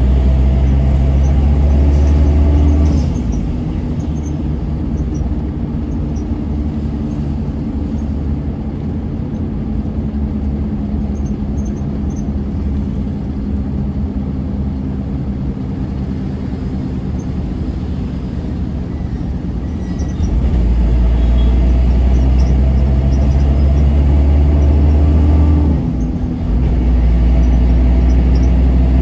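Steady engine and road noise of a car driving along a city road, with a deep low rumble. The rumble is heavy for the first few seconds, eases off, and swells again in the last third with a brief dip.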